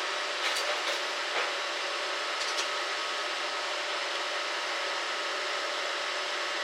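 Electric stick-welding arc burning: a steady crackling hiss, with a few sharper pops in the first two and a half seconds.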